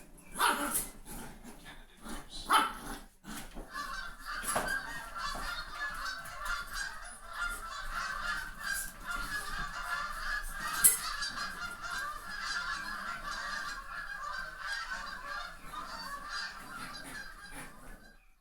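A dense chorus of many short, high-pitched animal calls, overlapping without pause and cutting off abruptly near the end, after a few sharp knocks in the first seconds.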